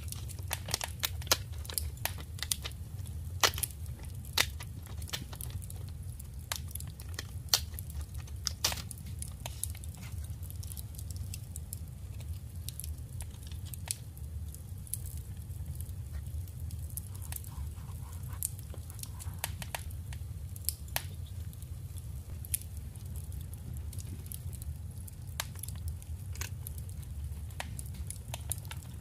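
Paper ephemera being handled: sharp little clicks and rustles, thickest in the first nine seconds or so, over a steady low hum.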